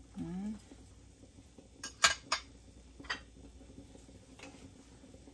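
A serving spoon clinking against a glass cooking pot: a quick cluster of three clinks about two seconds in, a single clink a second later, and a fainter one near the end.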